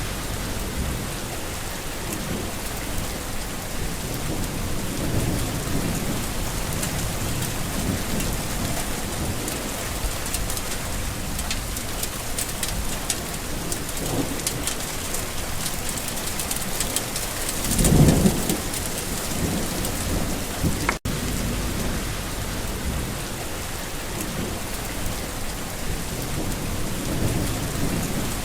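Steady rain falling and pattering on surfaces, with low thunder rumbling softly in the background. A louder thunder rumble swells about two-thirds of the way through. The sound cuts out for an instant shortly after.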